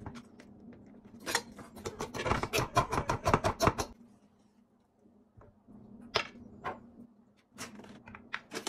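Hands breaking up raw dog-food patties and adding toppings into ceramic bowls. There is a couple of seconds of rapid crackling and scraping, then a few separate taps and clicks against the bowls and a plastic container, with more near the end.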